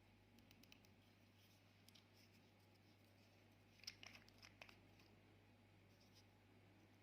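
Faint small clicks and light crackles over near silence, with a short cluster of them about four seconds in.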